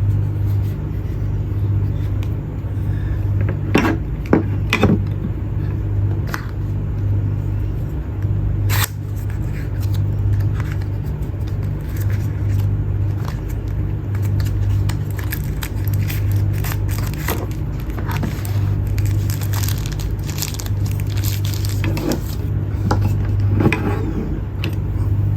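Scattered clicks and scrapes of packaging and a small device being handled, over a steady low hum.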